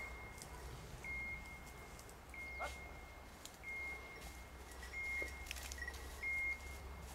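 Electronic beeper collar on a hunting dog, sounding steady high beeps of about half a second each, repeating a little more than once a second.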